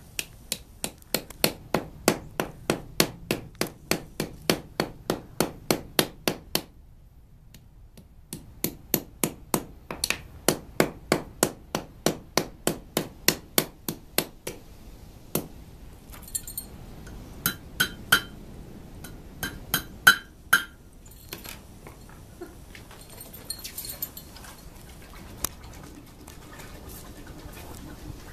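Ball-peen hammer beating a red-hot iron leaf into the end grain of a wooden stump, to cup and curl the leaf; the wood gives and scorches under the blows. The blows come fast and even, about three a second, in two long runs with a short pause between. Then come a few scattered, harder strikes with a ringing metallic tone, and light clinks near the end.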